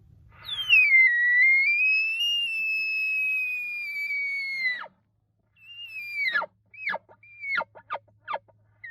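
Elk bugle call blown as a location bugle, imitating a bull elk. One long, high whistled note starts high, dips, climbs and holds for about four and a half seconds, then drops off. A moment later come five or six quick, sharply falling chirps, the bull's chuckles.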